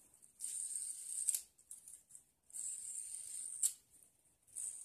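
A fidget spinner whirring in two short spins of about a second each, each ending in a sharp click as it is stopped or caught.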